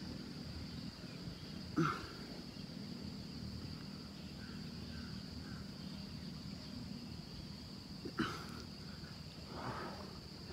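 Insects chirring in a steady, unbroken high-pitched drone, with two short, sharp sounds about two seconds in and just after eight seconds.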